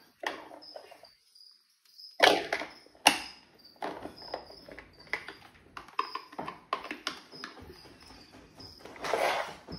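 Hard plastic clacks and knocks as a toy robot's foot and parts are handled, with two sharp knocks early on. A faint high chirp repeats about every half second throughout.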